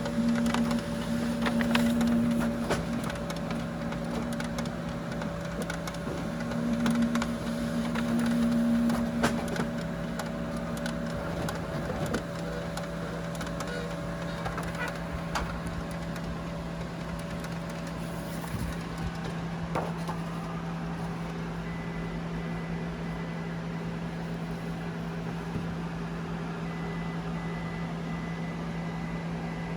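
Ricoh C840DN colour laser printer running, with a steady machine hum and irregular ticking clicks from the fuser output area, mostly in the first half. Two louder surges of motor sound occur early on. The ticking began after the fuser was taken apart to clean its thermopile sensor and put back together; the owner does not know its cause.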